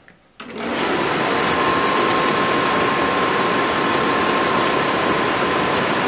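Attwood 8535-III RV furnace's blower motor starting up about half a second in and then running steadily, a loud air rush with a faint steady whine.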